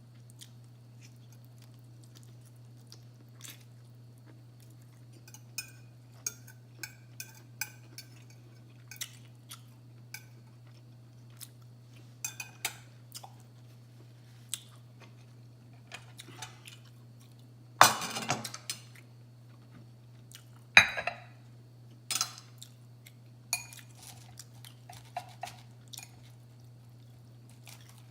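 Cutlery clinking and scraping on a plate in scattered short clicks while a salad is eaten, with chewing between them. Two louder clattering knocks come about two-thirds of the way through. A steady low hum runs underneath.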